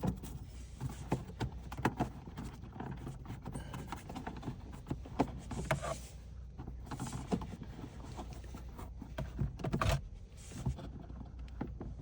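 Plastic cabin air filter and its housing being worked into place by hand: scattered light clicks, knocks and rustling as the locking claws are felt for, with a louder run of knocks near the end.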